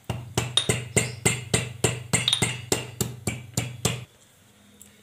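Fresh ginger being pounded in a steel mortar with a pestle: a quick, even run of about sixteen sharp knocks, roughly four a second, that stops about four seconds in.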